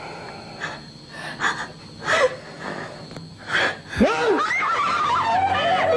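A man gasping for breath in four heavy, ragged gasps, then a short cry about four seconds in. Music comes in right after.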